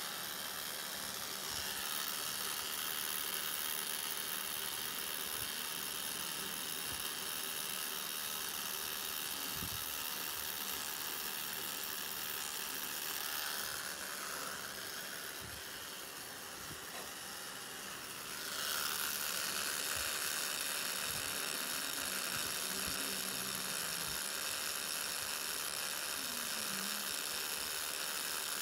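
Pen-style tattoo machine running with a steady whir as its cartridge needle works black ink into the skin. Just past the middle the sound drops and changes for a few seconds, then comes back as before.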